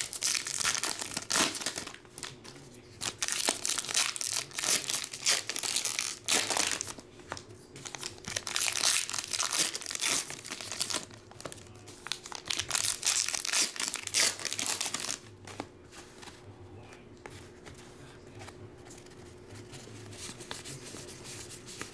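Wrappers of Topps Allen & Ginter baseball card packs being torn open and crinkled, in repeated loud crackly bursts for about the first fifteen seconds. After that, softer rustling and sliding as the cards are handled.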